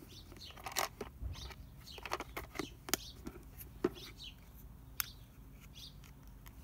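Sharp plastic clicks and taps as a small clear plastic SD card case is opened and a card is handled, with birds chirping faintly in the background.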